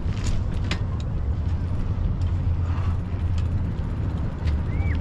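A steady low rumble with a few scattered sharp clicks, and a short rising-then-falling chirp near the end, like a bird call.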